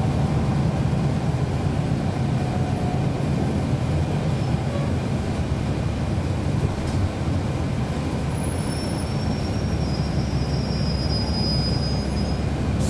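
Cabin noise inside a 2012 NABI 416.15 (40-SFW) transit bus under way, with its Cummins ISL9 diesel engine and ZF Ecolife automatic transmission giving a steady low rumble. A faint high squeal comes in for the last few seconds.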